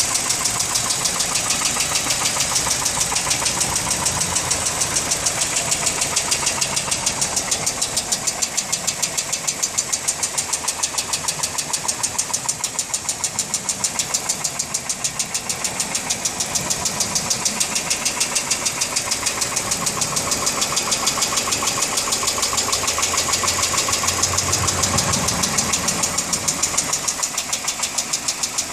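Hyundai Accent Prime engine running, with a fast, even ticking over the running sound: the strange engine noise the owner is recording.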